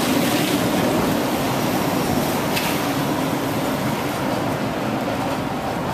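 Detroit People Mover driverless train running along its elevated guideway, a steady rail rumble and hum that eases slowly as the train moves away.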